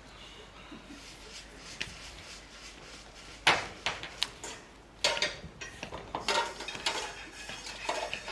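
Scattered sharp knocks and clatters of objects being handled, strongest about three and a half seconds in and again around five seconds.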